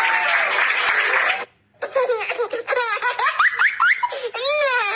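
The tail of the backing music, a dense rattling haze, cut off suddenly about a second and a half in. After a short gap, high-pitched laughter in quick rising and falling bursts.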